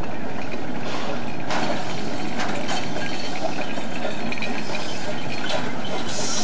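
Narrow-gauge railroad cars rolling slowly past, the steel wheels rumbling steadily on the rails with several sharp clanks and clicks from the running gear and couplings.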